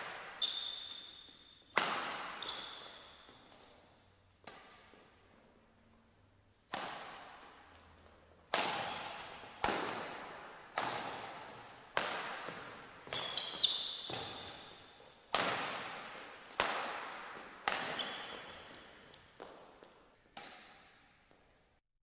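Badminton rackets striking the shuttlecock in a rally, sharp cracks about once a second that echo through a large hall, mixed with sneakers squeaking on the court mat.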